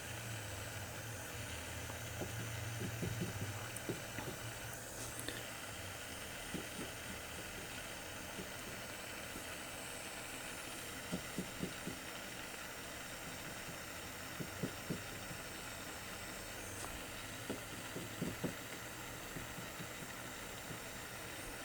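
Steady soft hiss from soldering a vertical seam on copper sheet, with scattered light taps as the work goes on.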